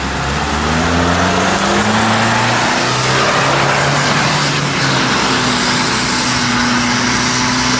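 Soviet 4x4 off-roader's engine revving hard under load as it churns through deep mud, its pitch rising and falling in the first few seconds and then holding steadier, over the spatter of wheels throwing mud.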